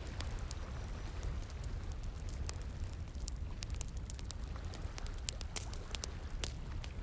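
Wood fire crackling, with irregular sharp pops and snaps, over a steady rush of flowing water.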